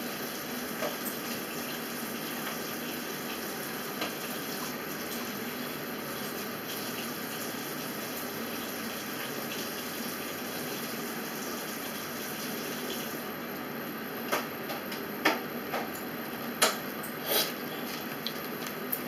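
Steady rushing background noise, even throughout, with several sharp clicks and taps in the last five seconds.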